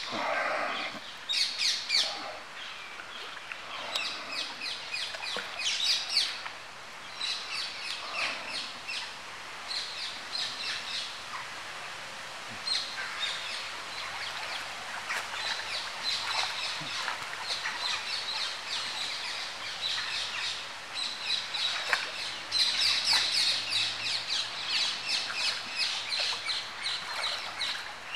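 Small birds chirping and singing in quick repeated phrases, denser toward the end.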